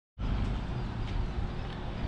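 Steady low rumble with a faint hiss over it, cutting in a moment after the start, with a few faint ticks: outdoor background noise.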